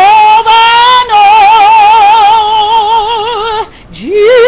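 A woman singing a gospel hymn unaccompanied, holding long drawn-out notes with a wide, even vibrato. About three and a half seconds in she breaks for a breath, then slides up into the next held note.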